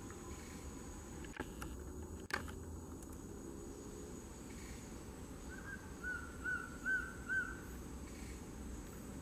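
Male collared trogon singing a short series of five even notes, about two a second, getting louder. Two sharp clicks come a few seconds before the song, and a steady high hum runs underneath.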